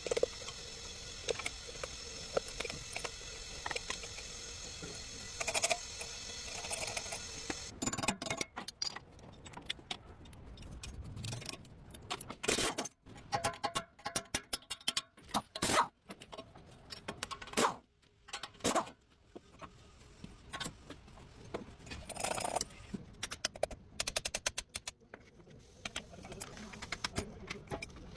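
Metal tools and parts clinking, knocking and scraping at irregular intervals. For the first several seconds a steady high whine sits underneath.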